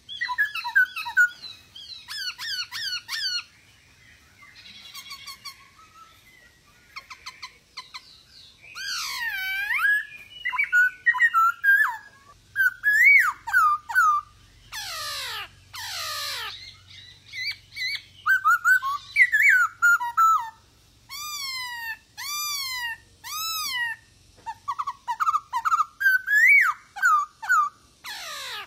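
Male black-throated laughingthrush (Poksay Hongkong) singing vigorously: a varied run of loud whistled phrases, fast repeated notes, swooping glides and rising-and-falling notes repeated in series, with short pauses between phrases.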